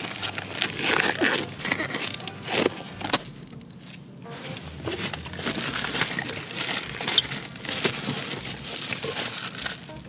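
Crinkling and rustling of plastic: black disposable gloves being pulled onto the hands, then plastic wrap being handled and pulled off a takeout cup, with a brief lull a few seconds in.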